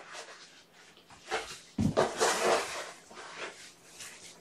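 A couple of dull knocks about a second and a half in, followed by a brief clatter and rustle.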